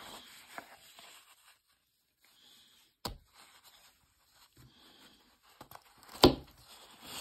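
Cotton gloves rustling and rubbing against a cloth watch cushion as a two-tone steel watch bracelet is handled, with a sharp click about three seconds in and a louder knock a little after six seconds.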